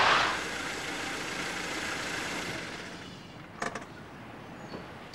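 A car driving along the street, its engine and tyre noise fading away over about three seconds. A few light clicks follow about three and a half seconds in.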